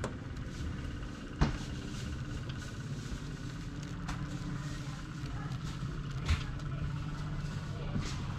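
A motor engine running steadily with a low hum, with two sharp knocks, about one and a half seconds and six seconds in.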